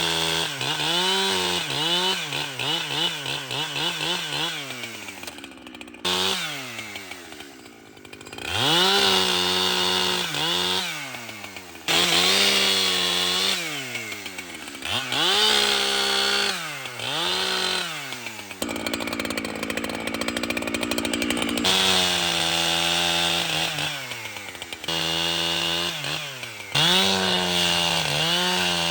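Echo CS-7310 two-stroke chainsaw cutting wood, its engine pitch rising and falling over and over as the throttle is worked and the chain goes into and out of the cut. The sound changes abruptly several times.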